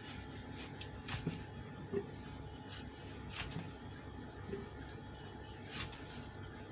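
Cleaver slicing into a whole kingfish on a cutting board: quiet cutting with a few scattered short taps and clicks of the blade.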